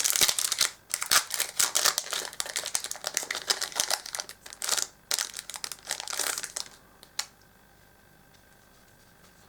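Foil Yu-Gi-Oh! booster pack wrapper crinkling as it is handled and torn open: a dense run of crackles for most of the first seven seconds, then one sharp click before it goes quiet.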